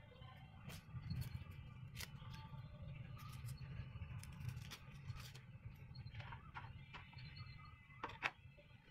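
Dry red-onion skin rustling and crackling as it is peeled off by hand with a small knife, with scattered sharp clicks. Near the end, a sharp knock as the peeled onion is set down on a bamboo cutting board.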